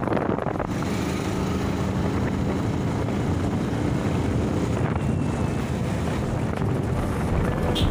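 Wind rushing over the microphone of a moving Yamaha R15 V2 motorcycle, with the bike's single-cylinder engine running steadily underneath.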